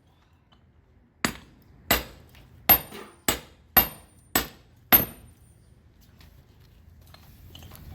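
Seven hammer blows on a freshly smelted iron bloom, about 0.6 s apart, each with a short metallic ring, as chunks are broken off it.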